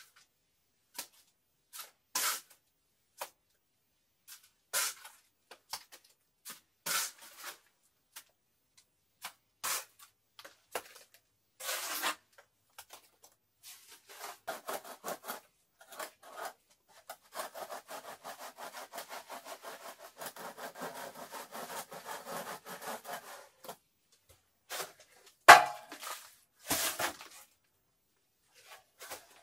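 Hand tools scraping on wet cement plaster and mortar: separate short scrapes every couple of seconds, then about ten seconds of steady scraping, and a sharp knock near the end.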